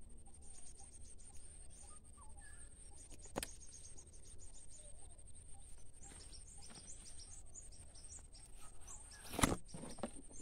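Quiet outdoor ambience with a steady high-pitched hum, a few faint bird chirps and scattered small clicks. Near the end comes a louder rustle as leaves brush against the phone.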